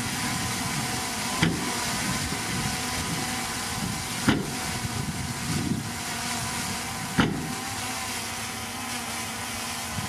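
Heavy earthmoving machine's diesel engine running steadily, with three sharp knocks about three seconds apart.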